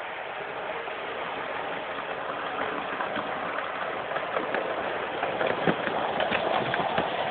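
Graham Farish N gauge Class 101 DMU model running on track: a steady whirr from its motor and wheels, with rapid light clicks as the wheels cross rail joints. It grows louder as the train comes close and passes.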